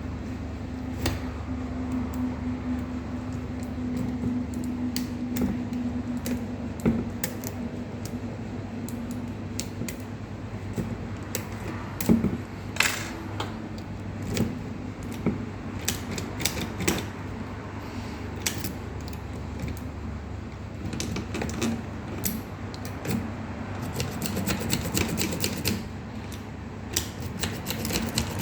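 Irregular metallic clicks and taps of a key and tool being worked in a stuck Toyota ignition lock cylinder as the lever inside is pressed down and the key forced to turn, with one louder knock about halfway through and a quick run of rattling clicks near the end.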